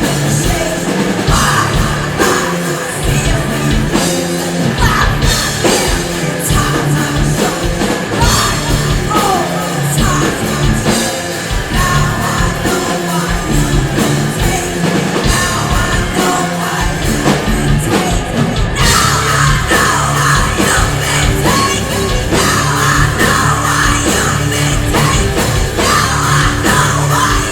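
Rock band playing loud heavy rock with a yelled, shouted vocal over pounding drums; the sound gets fuller about two-thirds of the way through.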